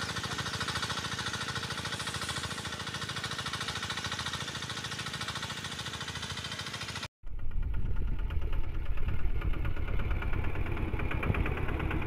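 Small diesel tractor engine running steadily while pulling an inter-row cultivator through crop rows. About seven seconds in the sound drops out for a moment and comes back louder and deeper, heard up close.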